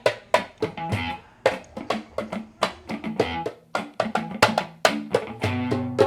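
Music with a steady beat of sharp percussive hits and plucked notes; a held chord comes in near the end.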